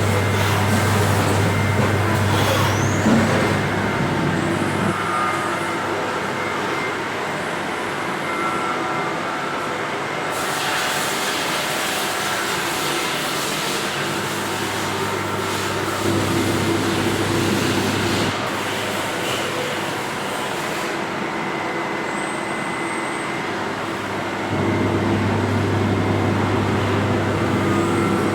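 Heckert CWK 400 D horizontal machining centre running under power: a steady machine hum with a low drone that cuts in and out several times, and a stretch of hissing about ten seconds in.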